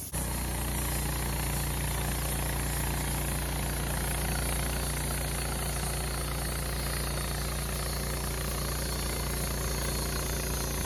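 Wood-Mizer LT15 sawmill's engine running steadily at a constant speed.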